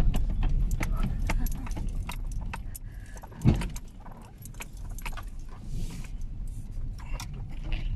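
Inside a car jolting along a rough, rutted dirt road: a steady low road rumble under constant small rattles and clicks from the cabin, with one heavier thump about three and a half seconds in.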